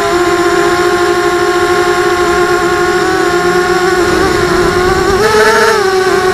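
Racing quadcopter's brushless motors and propellers whining steadily, heard close up from its onboard camera. The pitch wavers and climbs briefly about five seconds in as the throttle comes up, then settles back.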